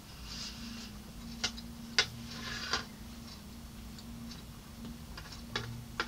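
A metal fork clicking against a clear food dish four times, loudest about two seconds in, with soft scraping of the fork through rice and green beans in between.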